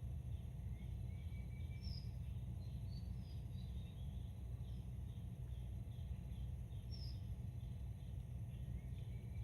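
Outdoor nature ambience: a steady low rumble under a high chirp that repeats about twice a second, with a few scattered higher bird calls.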